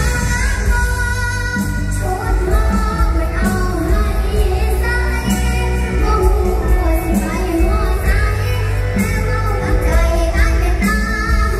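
Live Thai mor lam stage band music with a sung melody over a heavy bass and drum beat, played loud through a large PA system.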